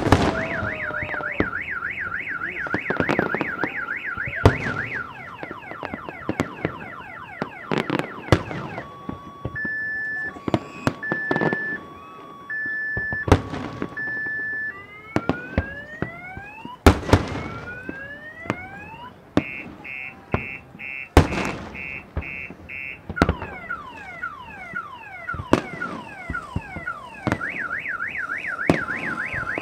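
A car alarm siren cycling through its tones: a fast warble, then steady beeps, rising whoops, a rapid stutter and falling sweeps, and back to the warble near the end. Fireworks bursting with sharp bangs go off throughout, the loudest about halfway through.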